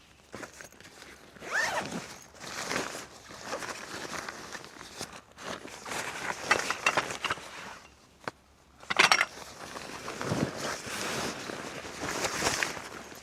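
Gear being handled at close range: irregular rustling and scraping, with a few sharp clicks, the loudest a little past the middle.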